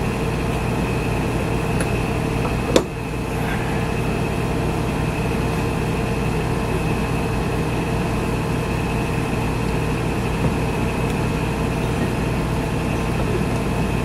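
Steady hum of a wall air conditioner running, one even drone with fixed tones throughout. A single sharp click about three seconds in, and a fainter one near the end.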